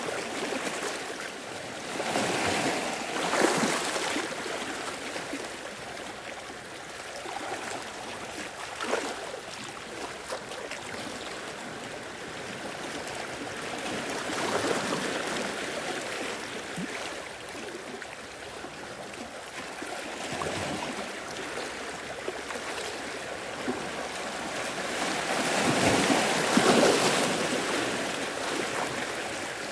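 Ocean waves washing in and breaking on the shore, rising and falling in several surges, the biggest one near the end.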